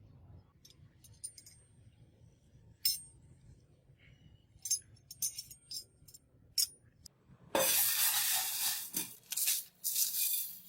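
Small metal parts and tools clinking and clicking now and then, then a loud, harsh scraping noise about two-thirds in that lasts a few seconds.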